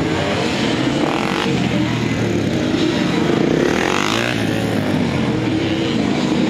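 Honda NSR250R's two-stroke V-twin engine revving, its pitch rising and falling again and again as the bike accelerates and brakes through tight turns around cones.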